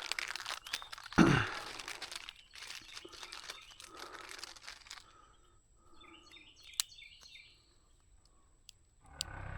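Rustling and crunching handling noises with a sharp thump about a second in, dying down after about five seconds to a few scattered clicks and a brief burst of high chirps.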